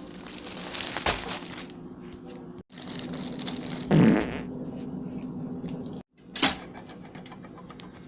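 A run of comedy sound effects spliced together, with abrupt cuts to silence between them. There are two sharp hits, about a second in and past six seconds, and a loud low blast about four seconds in.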